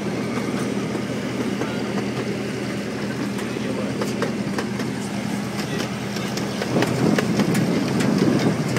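Miniature park train running on its track: a steady low engine hum with the wheels clicking over the rails, turning louder and rougher about seven seconds in.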